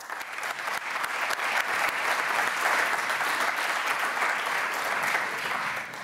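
Audience applauding: many hands clapping together, building up over the first second, holding steady, then dying away near the end.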